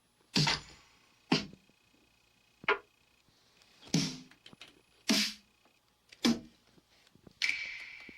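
Seven sharp single percussion hits, one at a time and a little over a second apart, each dying away quickly, like separate drum sounds being tried out one by one.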